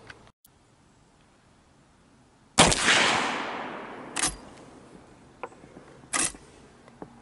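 A Winchester 1866 Yellow Boy short rifle in .45 Colt fires a single shot of a 250-grain handload about two and a half seconds in, a sharp crack with an echo that fades over a second or so. Two short sharp clacks follow, about two seconds apart.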